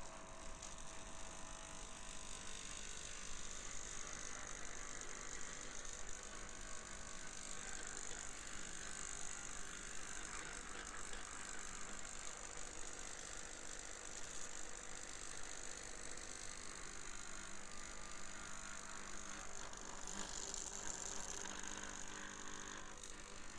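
Homemade electromagnetic oscillator engine of a paper-winged robotic insect running: its copper-wire coils drive the wings with a fast, steady mechanical rattle.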